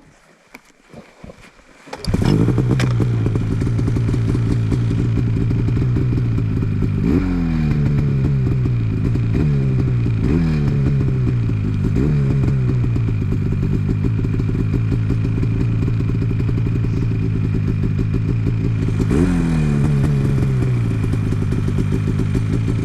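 Two-stroke snowmobile engine that comes in abruptly about two seconds in, then runs hard under heavy throttle, its pitch jumping up and sagging again several times as the sled works through deep snow.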